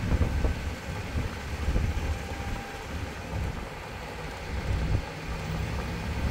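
Engine and road rumble of a moving RV heard from inside the cabin, with wind noise over the microphone.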